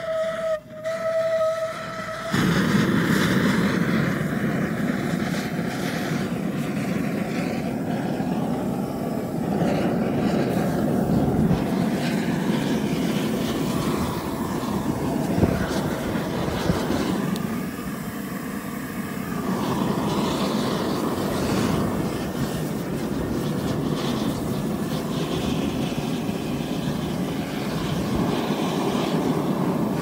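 Gas burners firing into a melting furnace. A steady whistling tone sounds for the first two seconds or so, then the burners run with a loud, steady rushing noise for the rest of the time.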